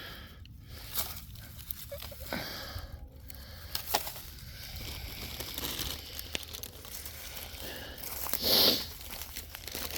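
Dry bamboo leaves and stems rustling and crackling, with scattered small snaps. A louder rustle comes about eight and a half seconds in.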